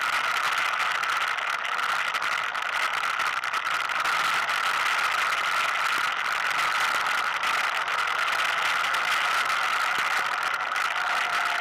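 Four-wheel-drive ATV running at a steady speed along a dirt trail: an even engine drone with the machine rattling over the ground, heard from a camera mounted on the quad.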